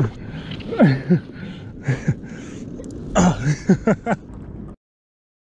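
A man's short wordless vocal sounds, such as exclamations or grunts, over a steady background hiss. The audio cuts off abruptly to dead silence a little under a second before the end.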